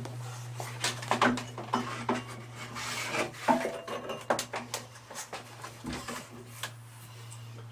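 Abrasive belt being fitted by hand over the wheels of a knife maker's belt grinder: a quick run of clicks, knocks and rubbing of the belt against the metal wheels and frame, thinning out near the end.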